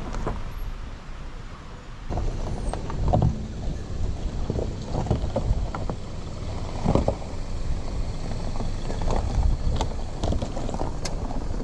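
Mitsubishi Outlander SUV crawling over a rocky dirt track, its tyres crunching and snapping on loose stones and gravel over a low rumble. The crackle of stones grows louder from about two seconds in, as the car rolls close by.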